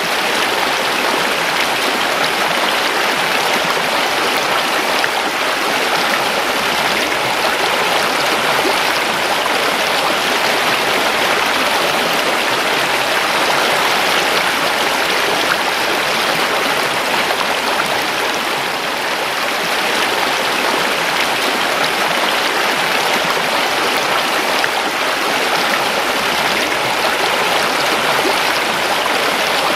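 River water running steadily over rocks, a continuous rushing babble with no breaks.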